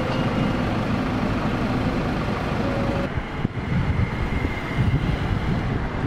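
Outdoor city ambience: steady traffic noise with a low rumble, the sound shifting about three seconds in.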